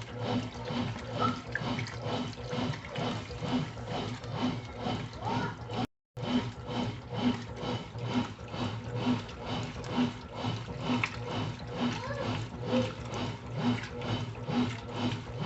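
Brastemp Intelligent 7 kg washing machine washing: water sloshing in the tub with a rhythmic churn about twice a second over a steady motor hum. The sound drops out briefly about six seconds in.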